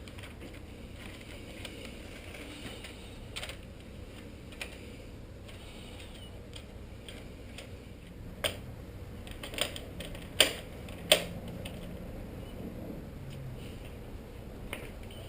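Hand tools working on a trike's crank arm and bottom bracket: irregular single metallic clicks and clinks over a low background, with a few louder sharp knocks bunched together past the middle.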